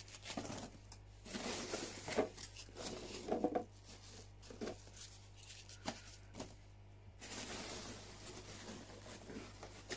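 Foam packing peanuts rustling and scraping in a cardboard box as hands dig through them, in uneven bursts with a few sharp knocks against the box.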